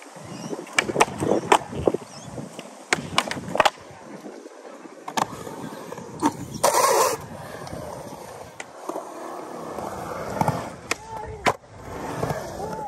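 Skateboard wheels rolling on concrete, broken by a series of sharp clacks as the board hits the ground on pops and landings.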